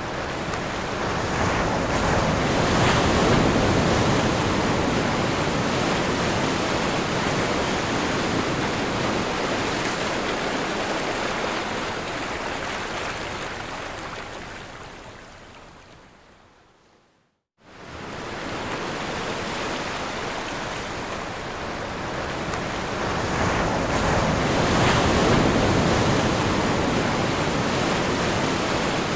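Ocean waves breaking and washing up a shore, a continuous surf that swells and ebbs. A little past halfway it fades out to silence, then comes back in abruptly and builds again.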